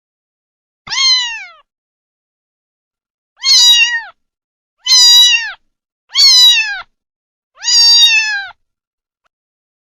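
Kitten meowing five times, each meow high-pitched and about a second long, dropping in pitch at its end, with dead silence between the calls.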